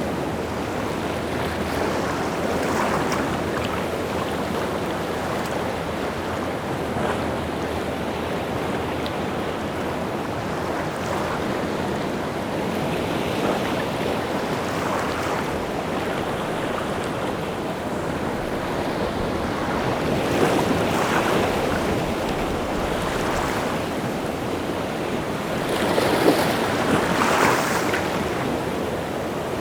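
Rough sea surf: waves breaking and washing in a continuous rush, with louder crashes swelling up every few seconds and the biggest one near the end. Wind is mixed in.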